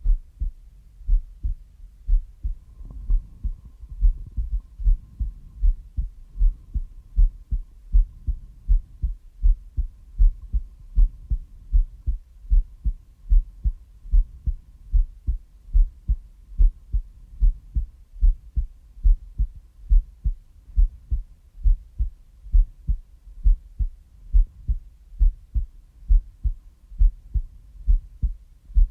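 A heartbeat: a steady lub-dub rhythm of paired, low, dull thumps, evenly spaced and unchanging.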